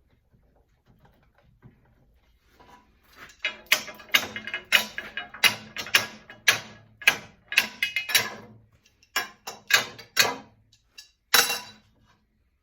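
Hand ratchet wrench being swung back and forth on a bolt, its pawl clicking in a short rasping burst on each return stroke, about two strokes a second. It starts about three seconds in and stops shortly before the end.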